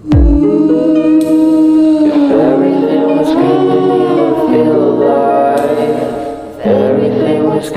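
Background pop song with sustained, layered singing over a bass line, entering with a low bass hit at the start.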